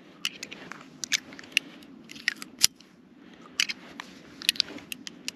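Ruger Super Blackhawk .44 Magnum single-action revolver being unloaded on half cock: the cylinder is turned and the spent cases are punched out one at a time with the plunger ejector, giving a string of irregular sharp clicks.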